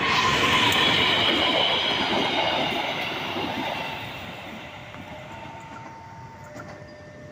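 Diesel locomotive and the cars of a rescue train passing close by, wheels rolling and clattering on the rails. The sound is loudest in the first three seconds and then fades steadily as the train moves away.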